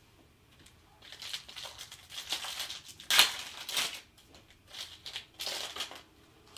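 Plastic foil wrapper of a Panini Prizm card pack crinkling and tearing as it is opened by hand, in a run of rustles over several seconds with the sharpest crackle about three seconds in.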